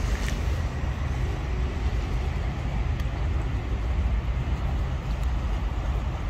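Steady low rumble of shoreline ambience: wind on the microphone and the drone of distant boats and traffic.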